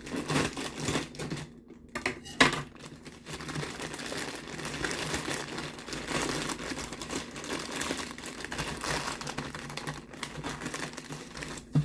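Rustling and crinkling of a shipping package being handled and opened, with scattered clicks and taps.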